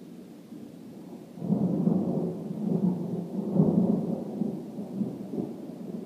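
Thunder rumbling from a nearby storm: it swells sharply about a second and a half in and rolls in several low surges for a few seconds before easing off.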